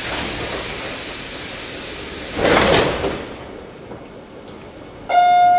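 Metro train's sliding doors opening: a sudden steady hiss of air, then a louder rush as the door leaves slide open about two and a half seconds in. Near the end a pitched electronic tone sounds, the warning ahead of the doors closing.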